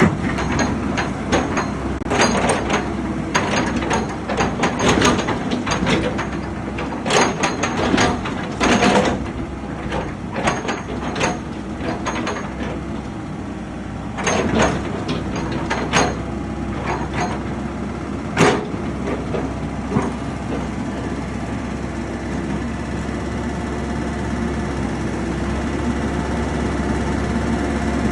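Komatsu excavator's diesel engine running steadily, with a string of sharp metallic clanks and knocks over the first twenty seconds, then just the steady engine.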